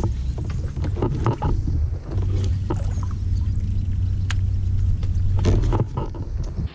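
Low rumble picked up on the kayak-mounted camera, with a steady low hum through the middle and a few sharp clicks and knocks.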